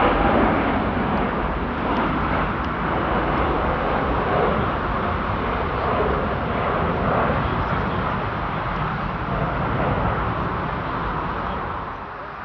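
Jet airliner's engines at takeoff thrust, a loud steady roar as it departs, falling away sharply near the end.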